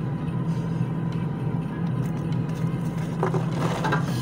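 A steady low machine hum, with a short rattle or knock about three seconds in.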